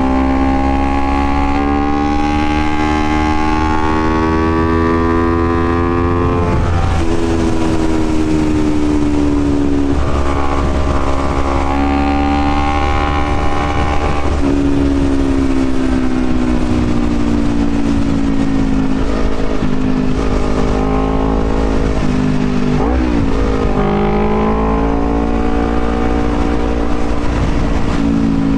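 Honda CBR250RR motorcycle engine under way, its pitch climbing as it pulls and dropping sharply at each of three upshifts in the first half. In the second half the pitch slides down as the throttle eases off, with a quick dip and rise near the end, over a steady low rumble.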